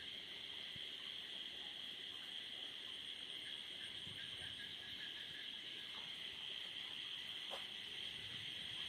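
A steady high chorus of night insects, with a few faint knocks about six and seven and a half seconds in.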